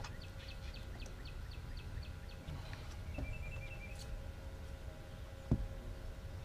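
Birds calling: a quick run of short descending chips, then a brief high trill, over a steady low rumble, with a single sharp knock about five and a half seconds in.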